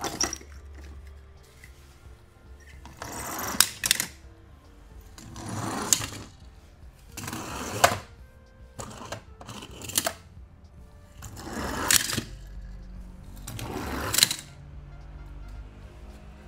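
Small toy cars running across a hard plastic board: six short rolling rushes about two seconds apart, each building for about a second and ending in a sharp clack. Quiet background music plays underneath.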